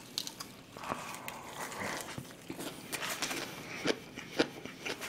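Close-miked chewing of a mouthful of lettuce-wrapped pork belly: irregular wet mouth clicks and smacks.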